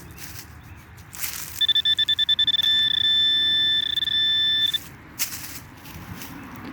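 Metal-detecting pinpointer sounding on a target: a quick run of high beeps that merges into a steady high tone for about three seconds, showing the probe is on metal. Short scraping noises come just before and after it.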